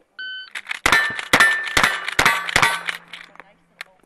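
A shot-timer start beep, then a quick string of lever-action rifle shots, about two a second, each answered by the clang of hanging steel targets ringing on after the hit.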